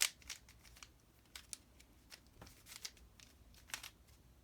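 Plastic clicks and clacks of a Mirror Blocks cube, a 3x3 mirror puzzle cube, being turned by hand during a solve. The turns are irregular, with the loudest click right at the start.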